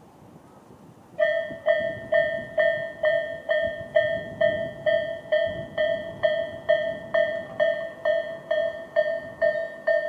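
Japanese railway level-crossing electronic warning bell (Tobu 'sound A') starting about a second in and ringing steadily at about two and a half strikes a second. The crossing is warning road users of an approaching train.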